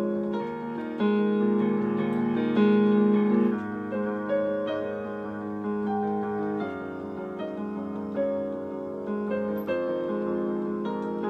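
Solo piano on an electronic keyboard with a piano voice: a slow piece of held chords and a melody line, with a new chord or note struck about every second or so.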